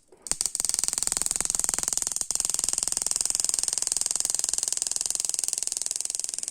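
A very rapid, steady train of sharp snapping clicks from a BMW M52 ignition coil's spark jumping across a spark tester's gap, with a brief break about two seconds in. The spark is very weak at this gap, the sign of a faulty coil.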